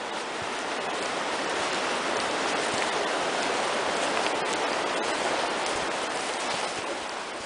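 Rushing water of a nearby stream, a steady hiss that grows louder over the first couple of seconds and eases off near the end.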